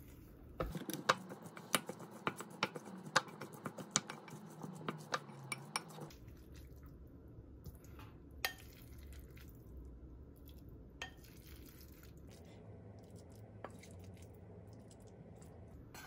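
Wooden spoon knocking and scraping against a ceramic bowl while rice is mixed: rapid, irregular clicks for about five seconds. Then a few single knocks as the rice is spooned out onto a plate.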